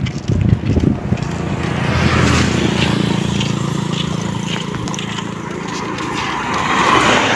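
A motor vehicle running along the road past the walker: a steady low engine hum with tyre and road noise that swells near the end. A few irregular knocks come in the first second.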